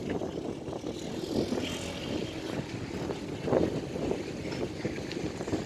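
Suzuki Swift driving on a test drive: a steady drone of engine and road noise, with no brake squeal heard.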